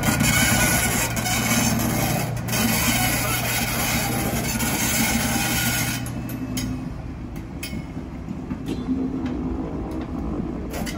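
Diesel shunting locomotive running with a steady low engine drone as it slowly moves a rake of passenger coaches, with a few short knocks from wheels and couplings. About six and a half seconds in, the engine eases off and the sound drops to a quieter rumble.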